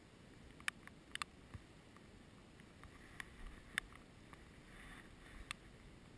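Light rain: a few scattered sharp ticks of raindrops striking the camera's housing, over a faint low outdoor hiss.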